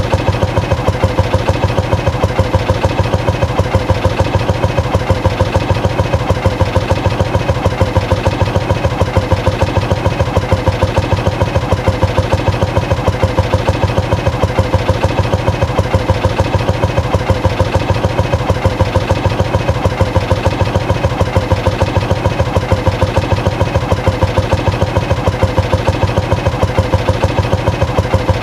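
Motorcycle engine idling steadily, its exhaust beats coming in an even, rapid pulse that holds the same speed throughout.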